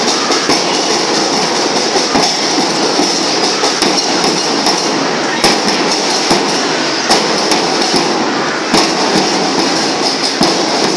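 A school marching band's drums playing: a continuous snare-drum rattle with sharper, louder drum strikes every second or so, and no melody heard.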